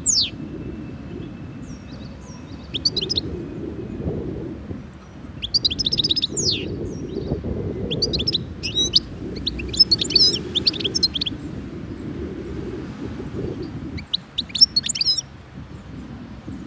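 Wild-caught European goldfinch singing in the cage: about five bursts of fast, twittering, tinkling phrases, the longest run in the middle, over a low steady rumble.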